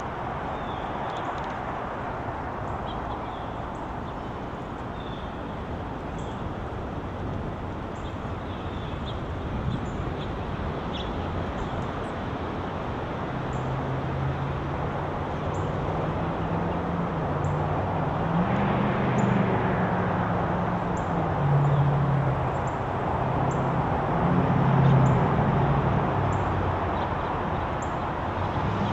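Steady traffic hum with short, high bird chirps scattered throughout. From about halfway, a vehicle engine's low hum grows louder, loudest near the end.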